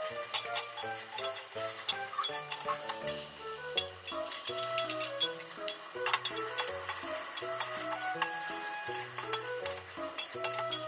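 Rolled omelette sizzling in a square tamagoyaki pan, with sharp clicks and scrapes as chopsticks and a metal slotted turner press and shape it. Soft background music with a bass line plays underneath.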